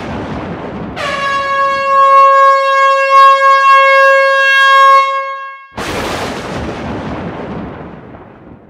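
A train's air horn blowing one long, steady note for about five seconds, starting about a second in. Before and after it there is a loud, even rushing noise that fades out near the end.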